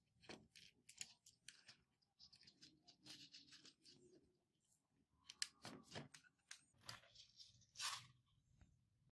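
Faint clicks and small scrapes of a carbon brush and its copper spring clip being handled and pressed into the brush holder of an angle grinder's plastic motor housing.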